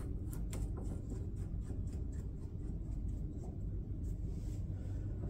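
Faint metallic clicks and taps from a Morse taper adapter being handled and fitted into a lathe spindle nose, several in the first second and one more around four seconds in, over a low steady hum.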